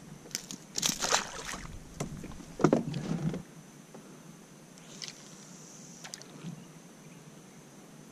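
Handling noises as a small black spot cod is unhooked with pliers beside a kayak: a few short rustling, scraping knocks in the first three seconds or so. After that it is quiet, with only a faint steady high whine and a couple of faint ticks.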